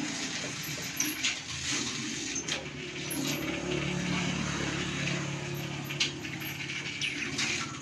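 Old Pakistani-built horizontal diesel engine with a large flywheel running steadily: a low, even hum with sharp metallic clicks and knocks scattered over it.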